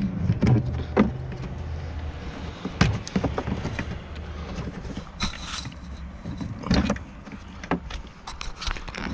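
Scattered plastic clicks and rattles as the wiring connectors are unclipped from the back of an Acura TSX taillight and handled inside the trunk. A low hum sits behind them and stops about halfway through.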